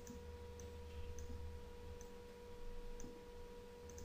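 Faint, irregular computer mouse clicks over a steady low electrical hum.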